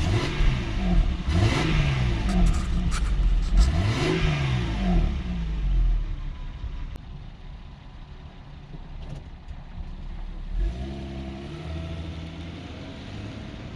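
Toyota Mark II GX100's straight-six engine blipped several times just after starting, the pitch rising and falling in quick revs, then settling to a quieter idle. About three-quarters of the way in, the idle steps up and holds a steady, slightly higher drone.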